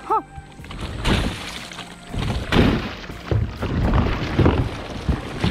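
Water sloshing and slapping against the hull of a Jonny Bass 100 boat as a person standing on it rocks it, in uneven surges about once a second. A brief high chirp just at the start.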